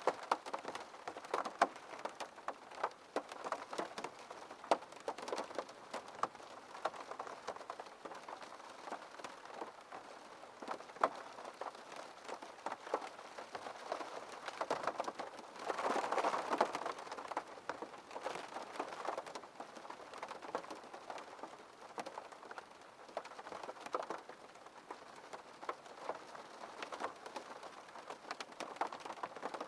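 Rain falling on a window pane: a steady hiss of rain with many irregular taps of individual drops. About halfway through, the rain briefly comes down heavier.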